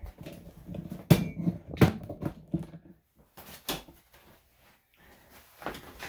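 Irregular knocks, bumps and rustling from handling as a small dog is carried and lowered into a bathtub, with the sharpest knocks a little over a second and nearly two seconds in.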